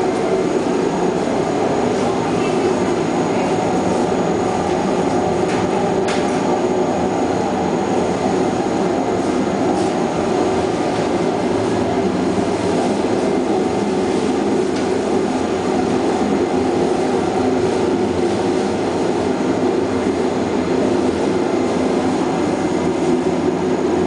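Continuous-conveyor microwave drying machine running: a steady, even drone with a thin high whine above it.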